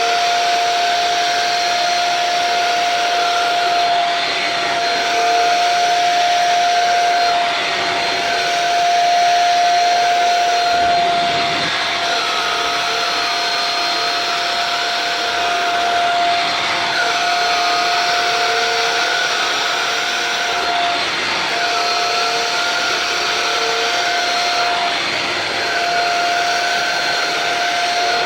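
Shark Rocket vacuum running steadily with its motorized mini brush tool, a constant high whine over rushing air, with a few slight wavers in pitch and brief dips in the whine.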